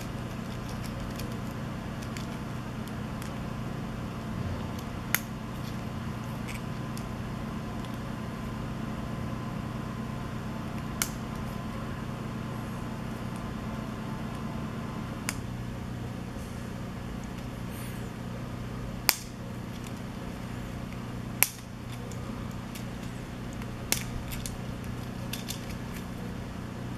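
3D-printed plastic FlexMesh pieces being snapped together by hand: a sharp click every few seconds, about six in all, over a steady low hum.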